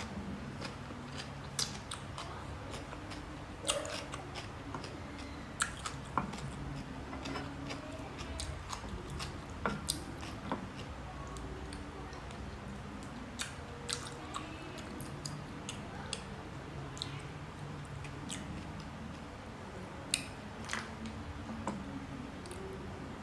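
A person chewing and eating, close to the microphone, with scattered sharp clicks and taps over a steady low hum.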